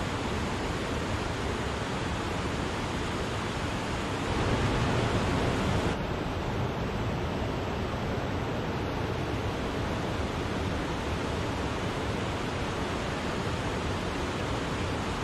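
Water of Wachirathan Falls pouring down, a steady, dense rushing noise. It swells a little louder about four seconds in and drops back abruptly around six seconds.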